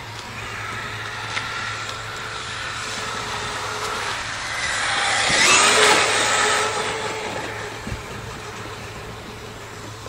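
Electric RC truck's motor and gears whining as it drives, growing louder to a peak about halfway through, with a rush of noise as it passes closest, then fading away.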